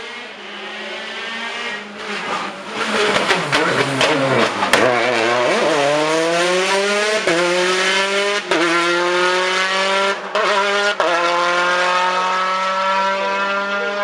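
Rally car engine at full competition pitch: the note drops sharply as the car slows, with several sharp exhaust pops, then climbs again as it accelerates hard, each rise cut off by a quick gear change, about four shifts in a row.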